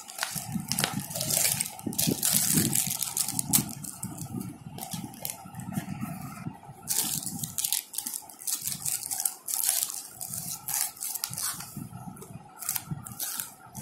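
Clear plastic wrappers crinkling and rustling as small packs are handled, with many irregular crackles and clicks.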